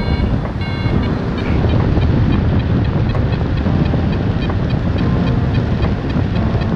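Steady wind buffeting the microphone of a camera on a paraglider in flight, a dense low rushing rumble. A faint, rapid, regular high beeping pattern runs underneath.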